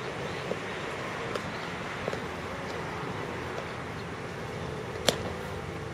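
A metal baseball bat hitting a pitched ball once, a sharp crack about five seconds in with a brief faint ring after it. Beneath it is a steady background rumble and a few faint ticks.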